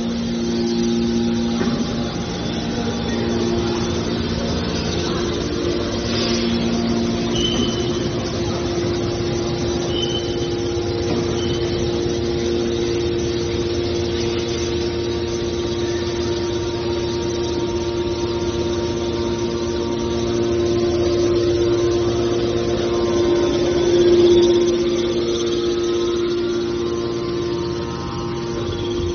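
Heavy machinery running with a steady hum, with a brief swell in loudness near the end.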